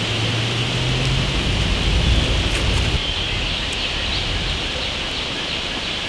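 Outdoor woodland ambience picked up by the camera microphone: a steady, even hiss, with a low rumble through the first three seconds and a few faint ticks.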